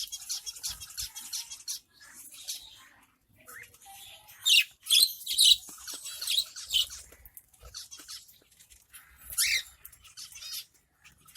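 Small cage birds (finches, budgerigars and cockatiels) chirping and calling in quick high-pitched bursts, stirred up at the sight of soft food. The calls come in clusters, busiest in the middle and again near the end.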